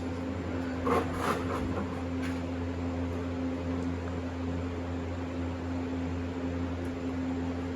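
Steady low machine hum, with a brief clatter about a second in.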